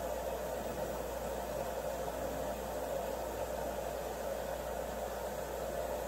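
LG WM2050CW front-loading washing machine at the start of a cycle: a steady, even hiss of water filling the machine while the drum slowly tumbles the laundry.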